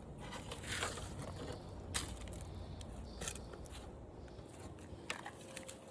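Faint handling noise: light clicks and a brief rustle, with sharp taps about two, three and five seconds in, over a low hum.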